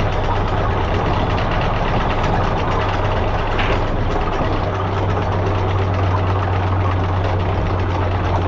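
Anchor windlass winching in the anchor chain: a steady motor hum under a continuous rattle of chain.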